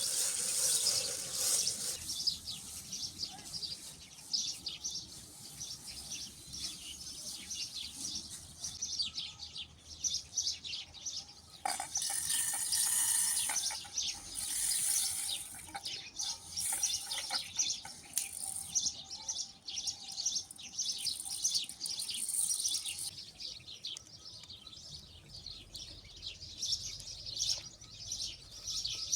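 Small birds chirping and twittering in quick, overlapping calls, with a few short bursts of rustling hiss midway.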